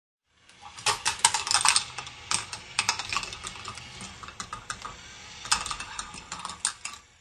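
K'nex ball machine running: plastic balls clattering and clicking along the plastic track and pieces in a dense, irregular rattle. It starts about half a second in, is thickest early and again past the middle, and cuts off near the end.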